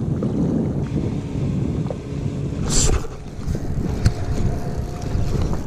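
Wind rumbling on the microphone, with a short hiss a little under three seconds in and a sharp click about a second later.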